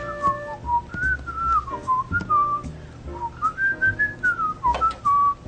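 A cartoon character whistling a tune in short phrases that slide up and down, with light thumps and clicks underneath.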